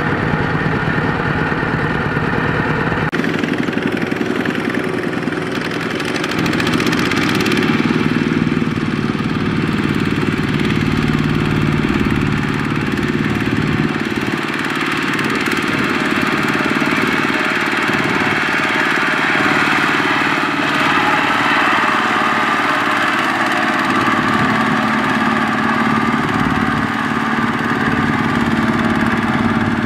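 Two-wheel walking tractor's single-cylinder diesel engine running steadily while pulling a trailer loaded with rice sacks through sticky mud. Its tone shifts about three seconds in and again about halfway through.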